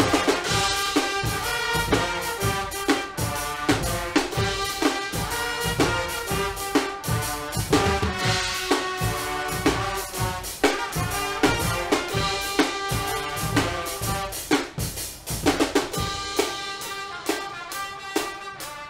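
Guggenmusik carnival band playing: loud brass chords over a steady beat on snare drum, cymbals and bass drum. Near the end the low notes thin out while the brass and drum hits go on.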